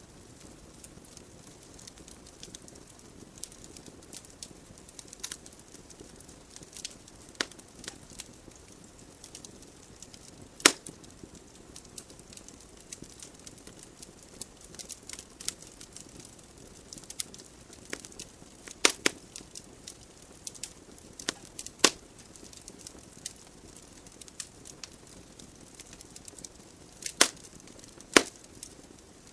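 Wood fire burning in a fireplace: a steady low hiss of flames with irregular sharp crackles and pops from the logs, a few of them much louder than the rest.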